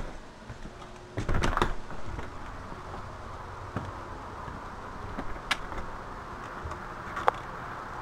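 An exterior door being opened: a loud clatter of knocks and clicks about a second in. This gives way to a steady outdoor background hiss with two short sharp sounds near the end.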